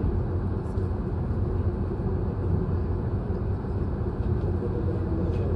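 Steady low hum and rumble of an H5 series Shinkansen train standing at a station platform.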